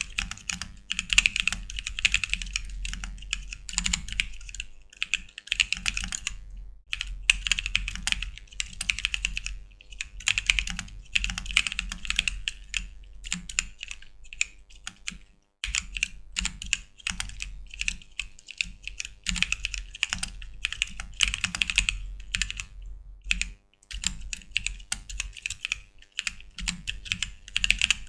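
Typing on a caseless custom ortholinear mechanical keyboard fitted with unlubed bootleg Holy Panda tactile switches: a fast, uneven run of key clacks with a metallic edge, broken by a few brief pauses.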